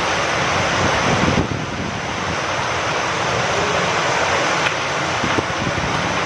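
Steady rain falling with wind, dipping slightly about a second and a half in, with a few faint drop ticks near the end.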